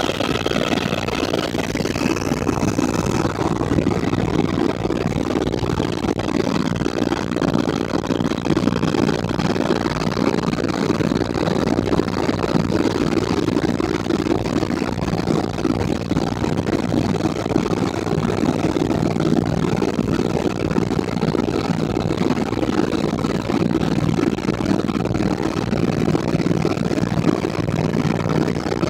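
Helicopter engine and rotor noise, a steady loud drone with no change in pace. A few faint high tones fade out about three seconds in.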